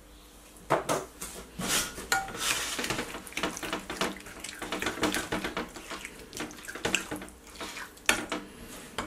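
Metal spoon stirring a thick, oily marinade in a white bowl: repeated clinks and scrapes of the spoon against the bowl over a wet squelching. It starts about a second in.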